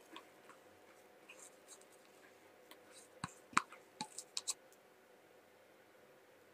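Faint clicks and light taps from handling a mixing bowl while the last of a thick sponge cake batter is poured into a parchment-lined cake tin. A quick run of sharper clicks comes about three to four and a half seconds in.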